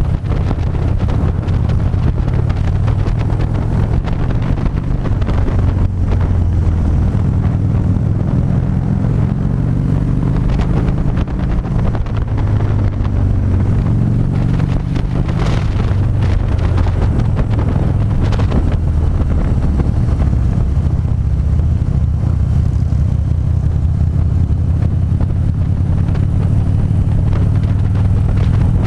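Harley-Davidson V-twin engine running at road speed, heard from the rider's seat with wind rushing over the microphone. The engine speed rises and falls slightly, and there are two short gusts of wind noise just past the middle.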